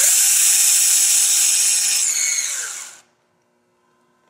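Compact cordless drill spinning a small bit through a wood template into a wooden newel post to mark its center. The motor whines steadily at full speed, then winds down about two seconds in and stops about a second later.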